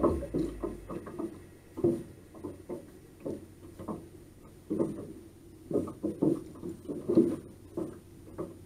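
Irregular hollow knocks and slaps around a jon boat's hull, about one or two a second, from handling in the boat and choppy water against the hull.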